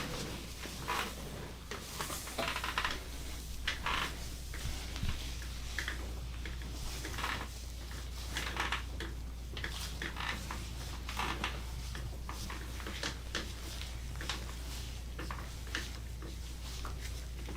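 Hands rubbing and kneading over a person's upper back in a massage: irregular soft swishing strokes of skin and fabric friction, over a steady low hum.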